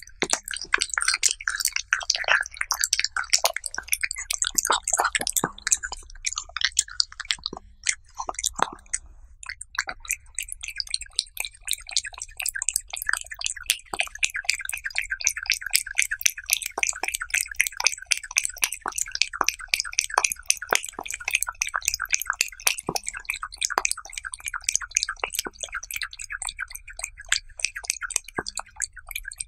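A cat eating raw beef slices from a plate, heard close up: a fast run of wet chewing and smacking clicks, with a brief pause about nine seconds in.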